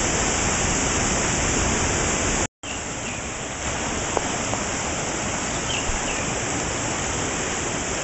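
Rushing river water running over rocks, a steady noise. It drops out for a split second about two and a half seconds in, then carries on slightly quieter.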